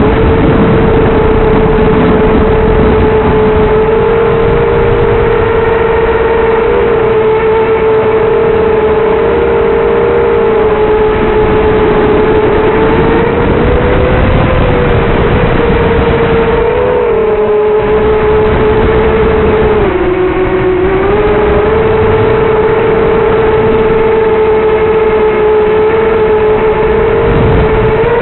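Onboard sound of a 250-size FPV racing quadcopter in flight: its four brushless motors and three-blade props whine at a steady pitch that wavers with the throttle, dipping briefly about two-thirds of the way through.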